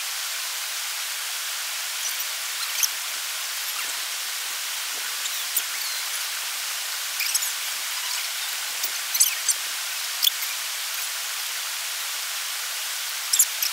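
Steady hiss of rushing water in the gorge, with a scattering of brief sharp high ticks through it.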